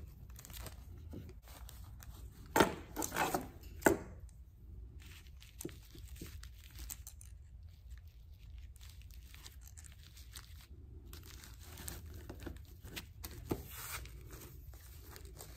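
Sheets of water-soluble stabilizer paper crinkling and rustling as they are handled and pressed into a wooden embroidery hoop, loudest in a few sharp rustles about three to four seconds in, then softer handling sounds.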